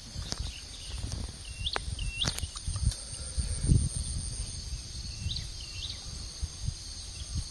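A bird gives short whistles that rise sharply at the end, mostly in pairs, a few times over a steady high insect drone. A low rumbling runs underneath, with one louder low thump about halfway through.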